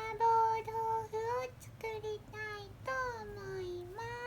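A high, child-like voice singing a short sing-song phrase in held notes that step up and down in pitch.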